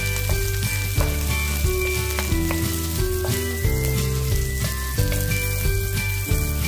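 Sliced onions and carrots sizzling as they stir-fry in hot oil in a wok, stirred with a wooden spatula. Background music with a stepping melody and a steady beat plays over the frying.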